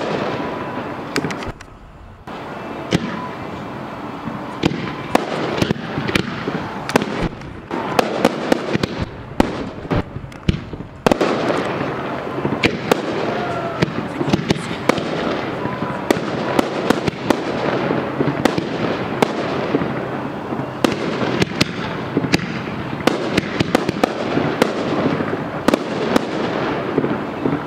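Aerial fireworks display: shells bursting in quick succession, many sharp bangs over continuous crackling and rumble, with brief lulls about two seconds in and again around ten seconds in.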